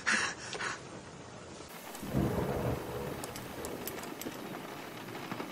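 Steady rush of water from a running bathtub tap in a cartoon soundtrack, with a few short bursts of noise about half a second in.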